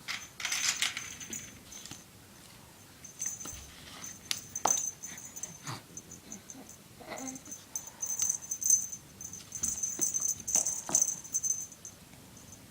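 A cat toy rattling in irregular bursts, with scattered sharp taps and clicks, as it is shaken and batted in play.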